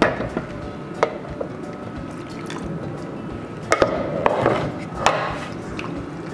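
Water poured and swirled from a glass container into a pan of cassava leaves simmering in coconut milk, to thin the too-thick coconut milk, with a few sharp knocks of a spatula against the glass. The pouring is heaviest about four to five seconds in.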